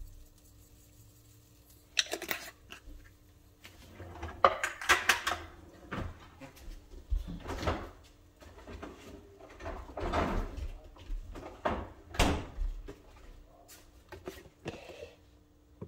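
Kitchen handling noises: a string of irregular knocks, scrapes and rustles, with a faint steady hum underneath.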